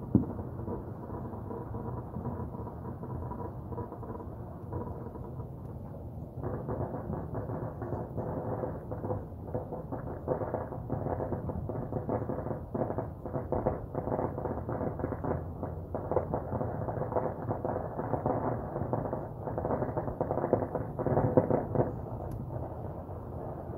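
Distant firecrackers going off across a city, heard as muffled popping. There is one sharp bang at the very start, and about six seconds in it thickens into dense, near-continuous crackling.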